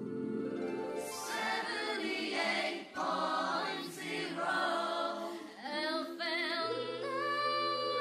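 Music with singing voices, choir-like, with long held notes that waver in pitch, starting just before from silence.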